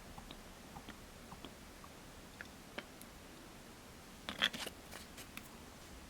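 Scattered light clicks and taps from handling small slime-making tools and containers, with a short clattery cluster about four and a half seconds in.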